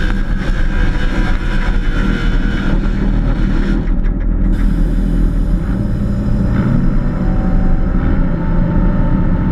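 Engine of a pulling truck running loud and steady.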